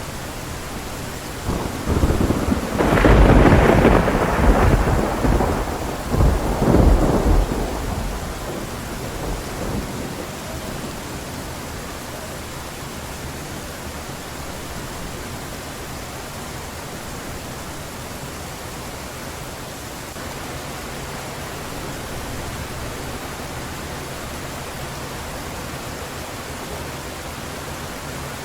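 Heavy rain falling steadily, with a loud thunderclap rumbling about two seconds in, surging again around seven seconds and dying away by about ten seconds.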